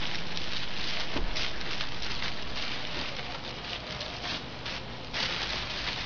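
Sheet of bubble wrap crinkling and rustling as it is handled and pulled around the unit, a dense crackle that gets brighter about five seconds in.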